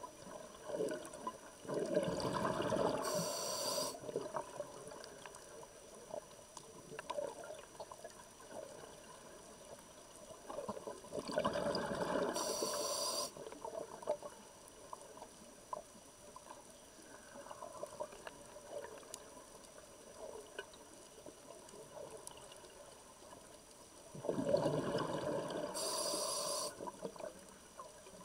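Scuba diver's regulator breathing underwater: three long bubbly exhalations about ten seconds apart, each with a brief high hiss near its end. Between breaths there is a faint steady hiss with scattered small clicks.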